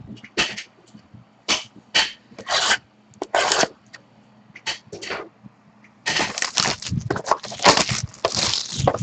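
A sealed box of trading cards being opened by hand: separate short scrapes and cracks of cardboard and packaging, then a dense run of scraping and rustling over the last three seconds as the pack is taken out.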